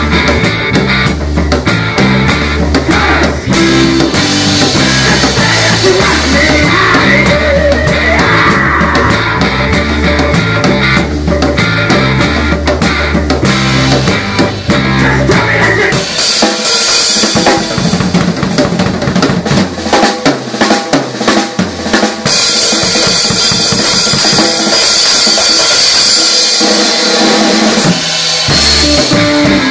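Rock band playing live: drum kit, electric guitars and bass guitar. About halfway through the bass drops away, leaving drums, cymbals and guitar, and the full band comes back in near the end.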